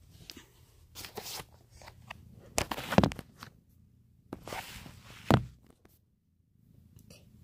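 Handling noise from a phone: rustling and rubbing against its microphone in several bursts, with knocks, the loudest a little before the middle and a sharp one just past five seconds.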